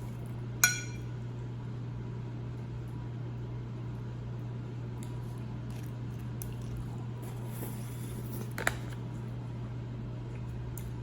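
Someone eating spaghetti: faint squishy chewing over a steady low hum, with a sharp ringing clink of a utensil against the dish about a second in and a smaller clink near the end.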